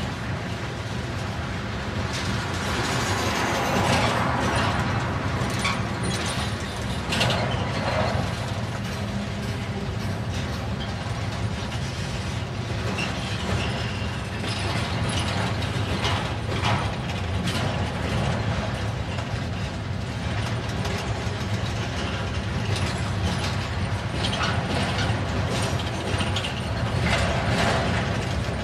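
Freight train of flatcars rolling past: a steady rumble of steel wheels on rail with frequent metallic clanks and rattles, and a brief high squeal about halfway through.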